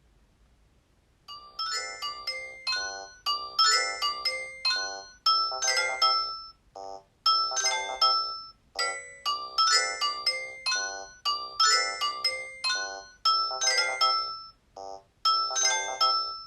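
A Nokia 225 ringtone playing from the phone: a melody of short notes, its phrase repeating about every six seconds, starting about a second in.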